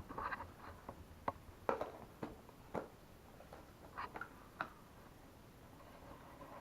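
Jigsaw puzzle pieces being handled and pressed down on a table: a few light, separate clicks and taps spread over several seconds.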